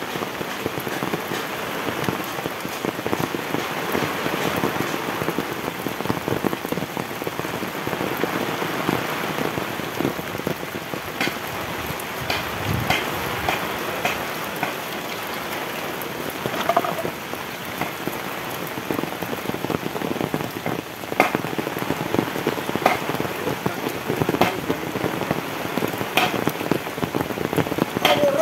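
Heavy tropical rain falling steadily, with frequent sharp ticks of single large drops striking close by.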